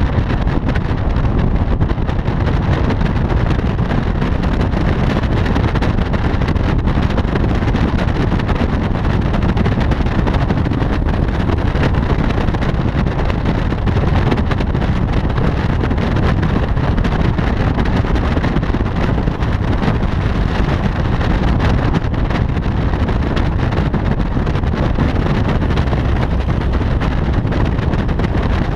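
Steady wind rush over a microphone on a camera mounted on the roof of a fast-moving car, with vehicle noise underneath, heaviest in the low end and unbroken throughout.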